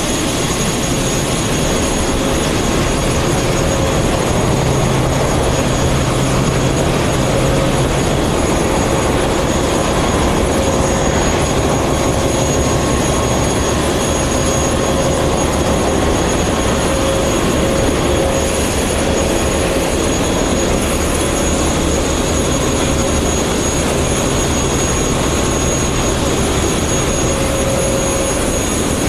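Loud, steady din of a ship's engine room: machinery running together, with a few steady whines over the roar.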